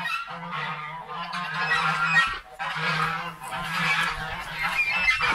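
A flock of domestic geese honking, several calling over one another.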